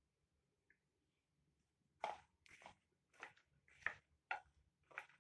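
Wooden spoon stirring a wet chickpea chaat mixture in a glass bowl: quiet at first, then from about two seconds in, short squelching scrapes about two a second.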